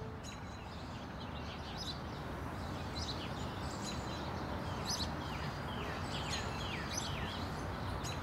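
Birds chirping over and over in short calls that slide down in pitch, over a steady background hiss of ambient noise.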